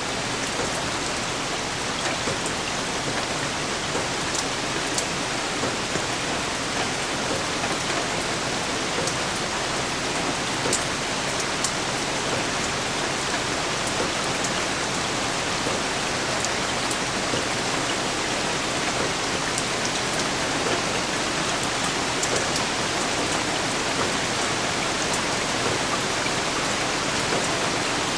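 Steady rain falling: an even hiss with scattered sharp ticks of single drops landing.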